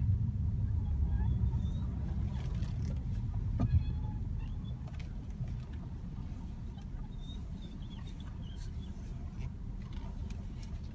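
Lexus GS 250 steering squeaking in short, faint squeals as the wheel is turned, over the car's low rumble, with a sharp click almost four seconds in. The cause of the squeak is unknown to the owner.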